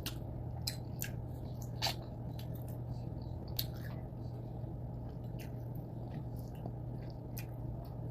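Eating noises: chewing with scattered short wet clicks and smacks, over a steady low hum.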